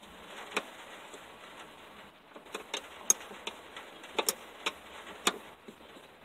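A ratcheting open-end wrench working a flare nut on a clutch master cylinder line, giving about nine sharp metallic clicks at irregular intervals, the loudest about three seconds in.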